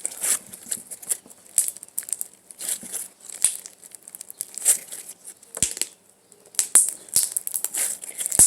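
Thick clear slime with foam beads being stretched, squished and popped by hand, giving irregular sticky crackles and small pops as trapped air bubbles burst, with a brief lull about six seconds in.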